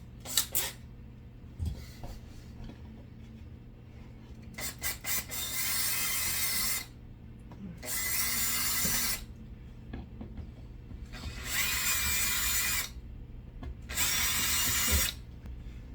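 Handheld power drill run in four short bursts of a second or so each, with a motor whine, enlarging a hole that is still too small. A few quick scraping strokes come just before the first burst.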